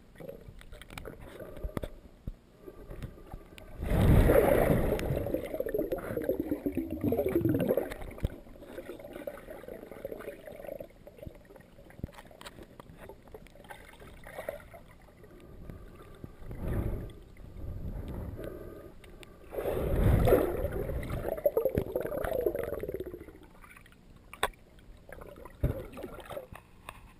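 Muffled underwater water noise through a submerged camera's waterproof housing: gurgling and sloshing that swells twice into louder stretches of a few seconds each.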